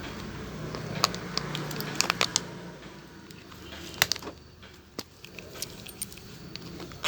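Irregular sharp clicks and light metallic rattles from small hard objects being handled, a cluster about two seconds in and the loudest about four seconds in.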